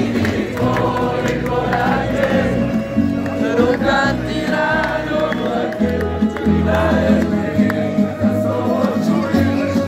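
Music: a group of voices singing a song together over instrumental accompaniment with a repeating low bass pulse.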